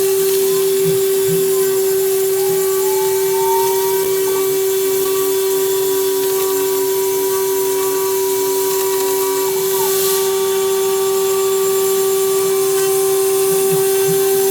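CNC router spindle running steadily at 24,000 RPM with a 1/4-inch endmill milling polycarbonate, a high steady whine over a hiss of cutting. The axis motors' whines rise and fall in pitch as the machine speeds up and slows down along its toolpath.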